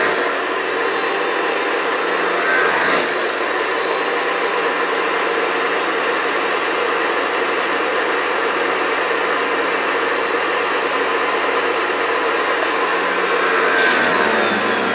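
AR Blue Clean 1900 psi electric pressure washer running at pressure, its water jet spraying onto a wooden deck: a steady hiss of spray over the hum of the machine. The spray flares up briefly about three seconds in and again near the end.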